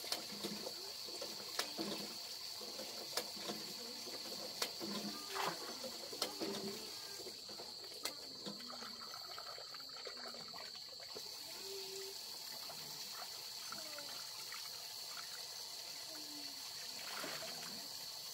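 Water trickling from a hose onto concrete. A steady high-pitched hum stops about eleven seconds in, and scattered clicks and short calls sound throughout.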